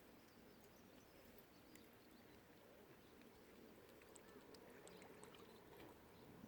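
Faint mallard ducks quacking over quiet lakeside ambience, with a few soft high clicks.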